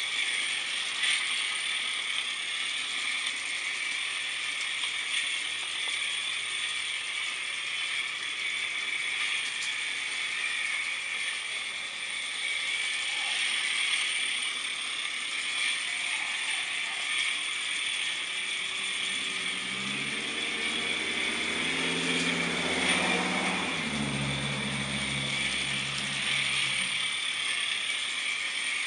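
Regner Lumber Jack live-steam locomotive running around a loop of garden-railway track: a fast, even mechanical chatter from its little engine and running gear over a steady hiss. A low drone joins in for several seconds past the middle.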